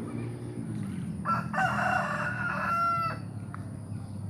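A rooster crowing once, a single drawn-out call lasting a little under two seconds, over a steady low rumble.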